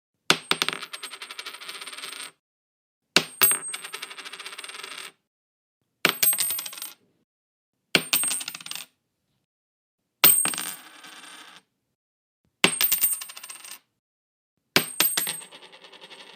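Coins dropped onto a wood floor seven times in a row. Each drop is a sharp metallic hit, then a quick clatter of bouncing clicks and a high ringing that dies away within a second or two, with silence between drops.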